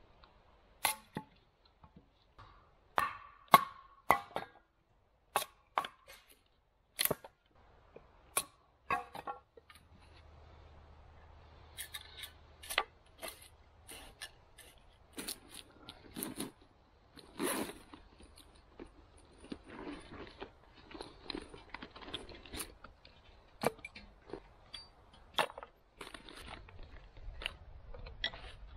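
Tomahawk splitting kindling on a wooden stump: about a dozen sharp strikes into wood over the first ten seconds. After that, softer rustling and clatter of sticks and kindling being handled and laid in a galvanized steel fire ring.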